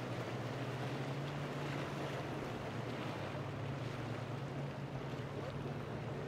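Motorboat running steadily through choppy water: an even engine hum under the wash of spray and wind noise.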